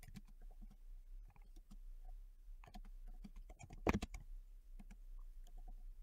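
Typing on a computer keyboard: irregular faint key clicks, with one louder knock just before four seconds in, over a faint low hum.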